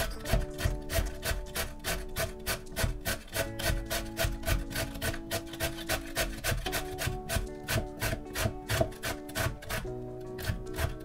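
A carrot grated on a stainless-steel box grater: quick, even rasping strokes, about three to four a second. Background music with held notes plays underneath.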